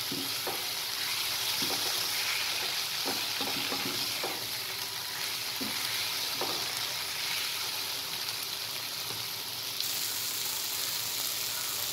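Prawns, onion and tomato sizzling in a frying pan while a wooden spatula stirs them, with scattered scrapes and taps of the spatula against the pan over the first half or so.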